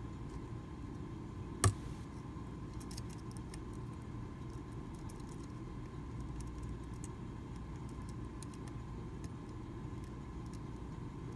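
Faint metallic clicks and scrapes of a lock pick working the chisel-tipped pins of a Medeco Original mortise cylinder under tension, with one sharper click just under two seconds in, over a steady low background hum.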